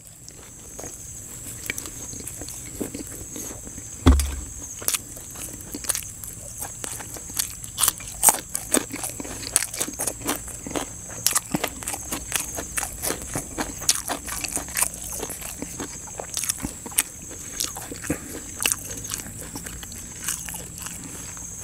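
A person chewing a mouthful of koi salad with fresh vegetables, close to the microphone: irregular wet mouth clicks and crunches, with a single low thump about four seconds in.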